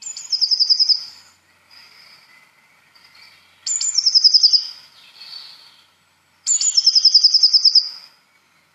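Recorded song of a Eurasian blue tit: three phrases, each a high thin note falling into a fast trill about a second long, with fainter chirps from other birds in between.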